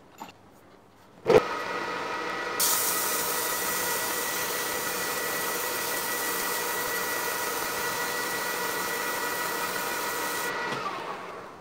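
A metal lathe starts with a sharp clunk about a second in, then runs steadily with a whine of several steady tones. From about two and a half seconds, an abrasive cloth strip held against the spinning steel bar adds a strong steady hiss, which stops about a second before the lathe winds down with falling pitch near the end.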